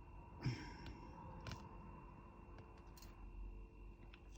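A few faint, sparse clicks and a light rustle over quiet room tone: the small handling sounds of diamond painting, with resin drills picked up and pressed onto the canvas.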